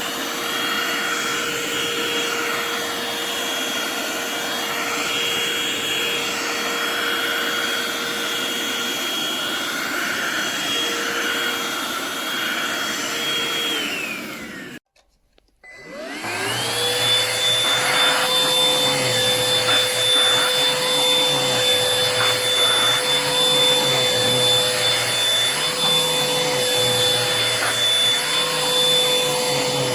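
Cordless hand vacuum motor running with a steady high whine. About fourteen seconds in it winds down and stops. After a brief silence it starts again and spins back up to a steady whine.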